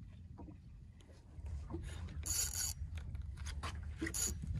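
Spinning reel being cranked with the rod bent under load: two short spurts of raspy, whirring reel gear, about two seconds in and near the end, with light clicks between and a low steady rumble underneath.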